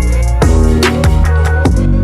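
Background electronic music with a steady drum beat and deep bass.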